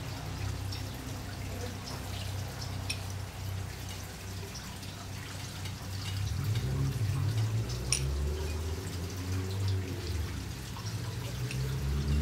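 Oiled portobello mushroom caps sizzling on a hot gas grill grate: a faint, uneven crackle with scattered small pops, one sharper pop near the end, over a low steady hum that grows louder about halfway through.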